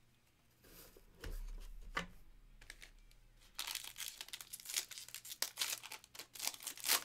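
Foil wrapper of a Donruss basketball hobby pack crinkling and tearing open, in rapid crackles from about halfway in and loudest near the end. Before that, a couple of soft knocks as a stack of cards is handled on the table.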